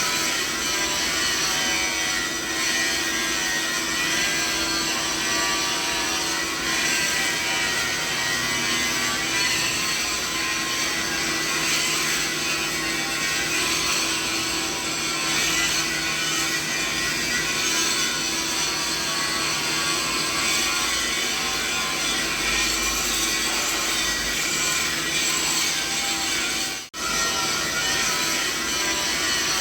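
Steady mixed machinery noise: a dense whir with several steady hums and whines spread from low to high pitches, running without change. It cuts out for a split second near the end.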